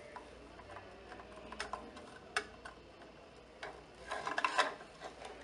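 Circuit-board expansion card being slid along the guide grooves into a gateway's card slot: scattered light ticks and clicks, with a brief scraping rub about four seconds in as the card is pushed home.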